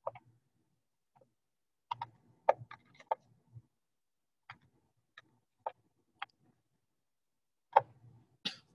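Irregular light clicks and taps: a small cluster about two to three seconds in, a few single ticks spaced about half a second apart in the middle, and two louder knocks near the end.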